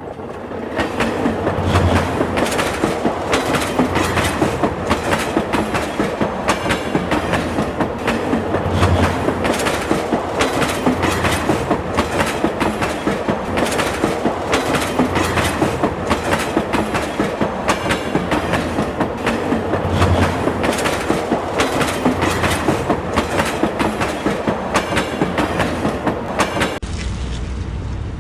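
Train running on rails, its wheels clattering over the rail joints in a steady clickety-clack rhythm over a constant rumble. It cuts off suddenly near the end.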